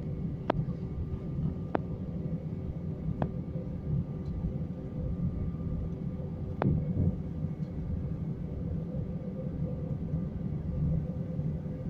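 Airbus A319 cabin noise while taxiing: a steady low rumble from the engines and the rolling airframe, with a faint steady hum over it. Four short sharp knocks come through it, the last about six and a half seconds in.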